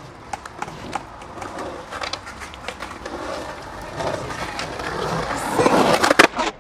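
Skateboard wheels rolling on the concrete of a skate bowl, growing louder as the board comes closer, with sharp clacks of the board striking the ramp near the end.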